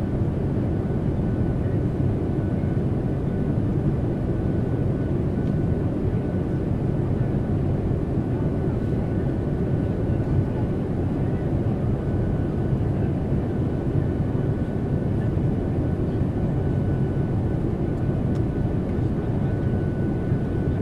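Airplane cabin noise in flight: a steady, even low rumble of engines and airflow with a faint steady high tone above it.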